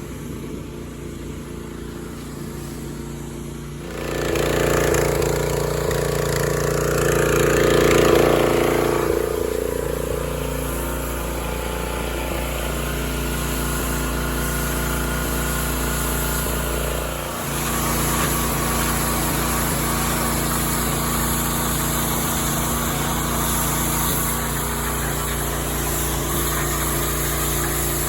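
Small gasoline engine running steadily; about four seconds in it suddenly gets louder, as if revved or brought close, then eases back a few seconds later, with a brief dip about two-thirds of the way through.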